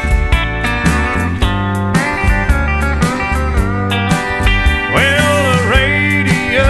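Background country music, an instrumental passage led by guitar with steel-guitar slides over a steady beat.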